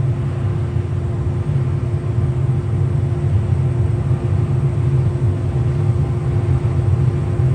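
A combine harvester running steadily, heard from inside its cab, as a low, even drone with a constant hum above it.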